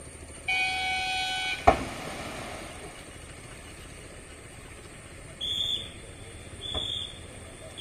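A horn sounds once, one steady blast of about a second, followed by a sharp knock. Near the end come two short, high whistle-like toots about a second apart, over steady outdoor background noise.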